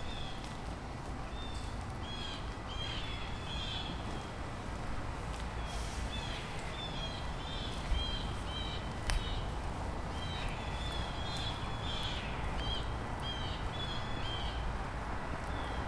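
Birds calling with short, high chirps in runs of several notes, over a steady outdoor background rumble. A single sharp click comes about nine seconds in.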